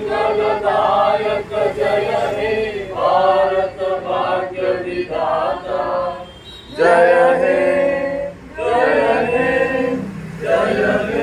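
A small group of men and women singing a patriotic song together in slow, held phrases with short breaks between them.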